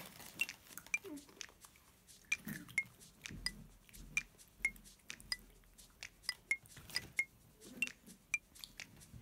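An irregular run of small sharp clicks, roughly two a second, as a packaged snack is handled and eaten at close range, with faint low murmurs in between.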